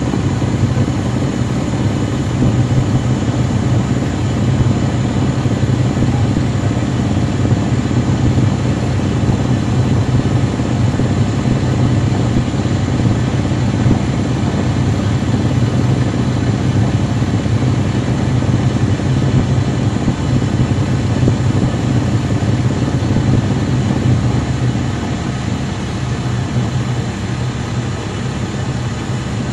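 Caterpillar C13 ACERT diesel engine of a 2009 NABI 416.15 transit bus, running at a steady pitch with a loud, even low hum. It eases slightly in level near the end.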